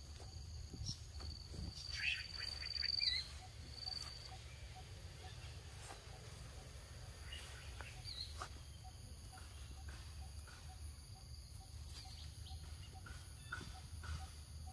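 Steady high-pitched drone of insects, with a low rumble of wind on the microphone underneath. About two seconds in a brief high whistling call rises over it and is the loudest sound, and faint scattered clicks follow.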